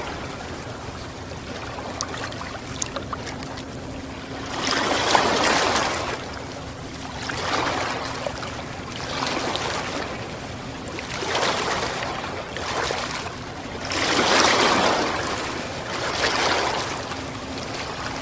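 Ocean waves breaking and washing in, surging every two seconds or so, over a steady bed of strong wind noise.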